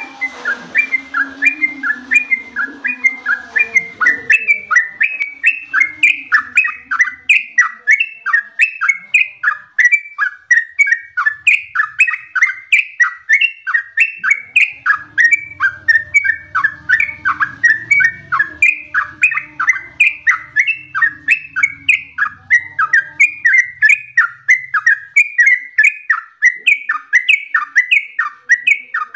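Yellow-vented bulbul (trucukan) singing a long, unbroken run of short repeated notes, about three a second.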